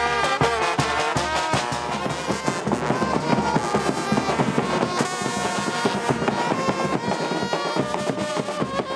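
A small street band playing: a trumpet carries the tune over a snare drum and a bass drum beating out the rhythm.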